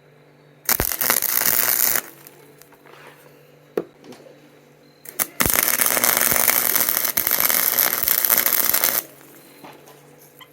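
Electric arc welding: two bursts of crackling and sizzling that start and stop abruptly as the arc is struck and broken, a short one about a second in and a longer one of about three and a half seconds.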